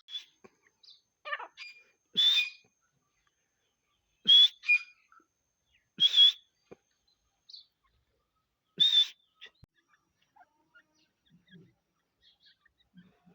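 Teetar partridge calling: a string of short, loud, sharp calls about two seconds apart, with a few softer notes between them, dying away to faint scattered sounds in the last few seconds.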